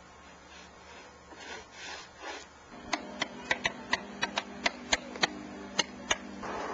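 A hand tool working wood: a few soft scraping strokes, then about a dozen sharp clicks or taps at an uneven pace from about three seconds in.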